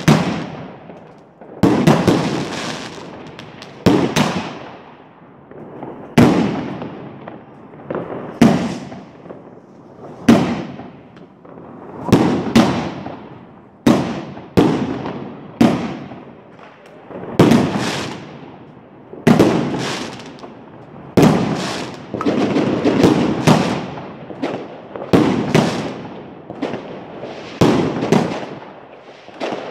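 New Year's Eve fireworks: aerial shells bursting overhead in a steady series of loud bangs, about one every two seconds, each dying away over a second or so.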